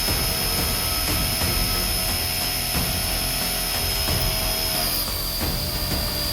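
Micro RC helicopter's small electric motors whining steadily in flight over a rough rotor-wash rumble; about five seconds in the whine dips slightly in pitch as the throttle eases.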